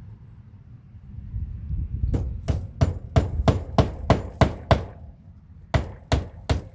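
Hammer driving a nail into old fence wood: a quick, even run of about nine blows, a short pause, then the hammering starts again near the end.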